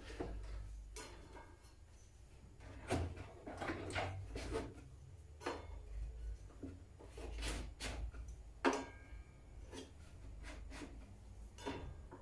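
Scattered clicks, knocks and sliding as a home-made rip fence is shifted along an Einhell table saw's table and a ruler is laid against it to set the cut width. The sharpest knock comes about nine seconds in. No saw motor runs.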